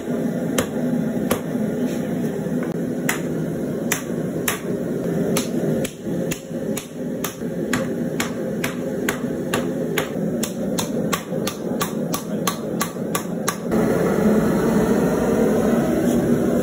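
A hand hammer strikes red-hot spring steel on a steel anvil in sharp ringing blows, about one or two a second at first and quickening to three or four a second before stopping a few seconds before the end. A steady rushing noise runs underneath and gets louder once the hammering stops.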